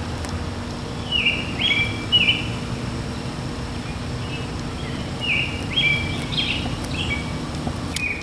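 Small birds singing in the background: groups of short, high chirping notes, mostly about a second in and again around the middle, over steady low outdoor background noise.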